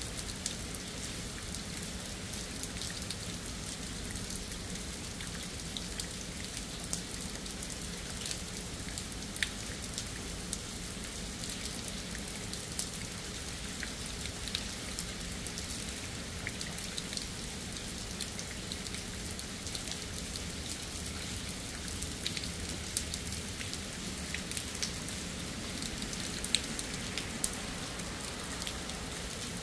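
Steady rain falling, with many individual drops striking close by as sharp taps scattered throughout and a few louder ones. A faint steady low hum sits underneath.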